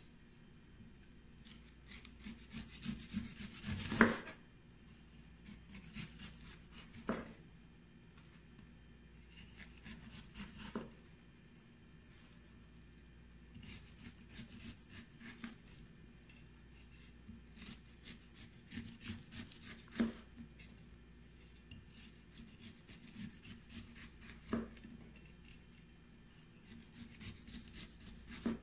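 Chef's knife shaving the spiny skin off a chayote squash in strips: a rasping scrape in repeated strokes. A sharp knock ends several of the strokes, the loudest about four seconds in.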